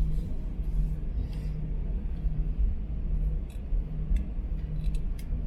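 Steady low rumble and hum of an Airbus A321 cabin before takeoff, with a few faint clicks and rustles.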